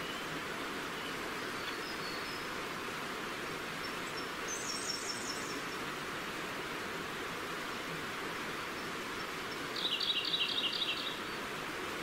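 A forest stream runs steadily throughout. Two short bird songs of fast repeated notes sound over it: a faint, high one about four and a half seconds in, and a louder, lower one at about ten seconds.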